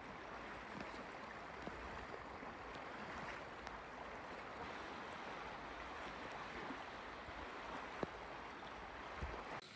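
Floodwater rushing steadily, with a few faint knocks.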